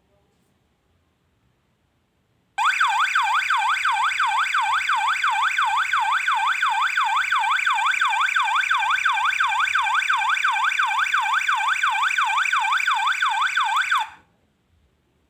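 Electronic alarm siren (buzzer) of a home-built laser tripwire alarm circuit going off: a loud warble sweeping up and down in pitch about three times a second. It starts abruptly a few seconds in and cuts off suddenly near the end.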